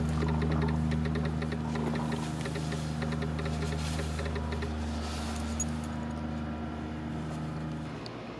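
Construction machinery engine running steadily, with a rapid ticking over it for the first half; the engine drone drops away near the end.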